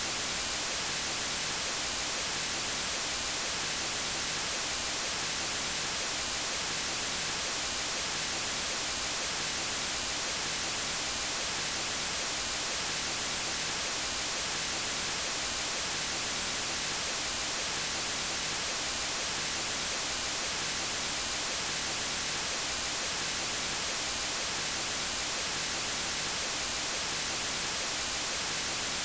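Steady white noise: an even, unbroken hiss, strongest in the high frequencies, played as a sleep aid for babies.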